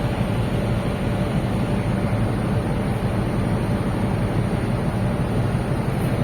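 Steady low rumble of a cruise ship under way, mixed with wind noise on the microphone.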